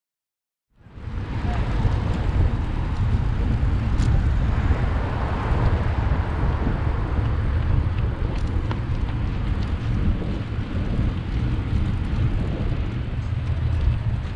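Wind buffeting the microphone of a moving bicycle over city street noise, a steady low rush with a hiss above it. It cuts in suddenly just under a second in, after silence, with a few faint clicks later on.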